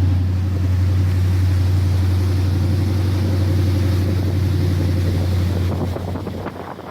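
Motorboat engine running at a steady pitch, easing off about six seconds in.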